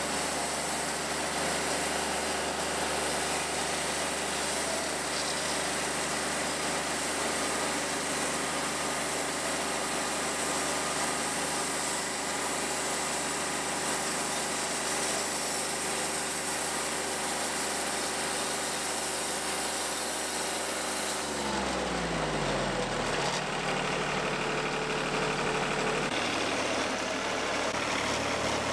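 Wood-Mizer band sawmill's engine running fast with a bright hiss. About 21 seconds in it is throttled back: the hiss drops away and the pitch falls over a couple of seconds to a steady idle.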